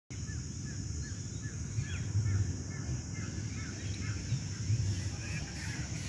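A steady high-pitched insect drone, with a bird repeating short chirps about two to three times a second that fade out after about four seconds, over a low rumble.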